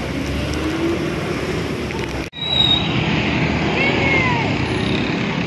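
Busy street hubbub of crowd voices and traffic noise. The sound drops out for an instant about two seconds in; after that, scattered voices call out over the din.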